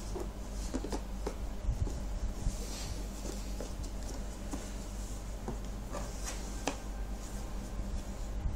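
Jigsaw puzzle pieces being handled and fitted back into place: light, scattered taps and clicks over a steady low hum.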